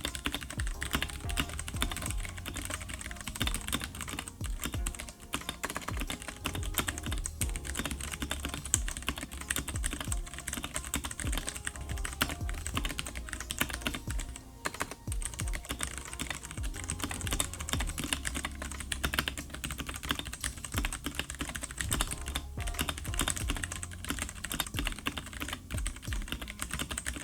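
Continuous fast typing on a Ducky One 3 Mini mechanical keyboard with tactile, non-clicky Cherry MX RGB Clear switches: dense, irregular keystrokes, with a low hum underneath.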